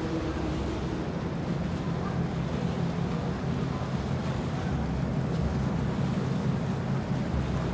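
Steady low rumble of a boat's engine on the water, mixed with wind noise on the microphone.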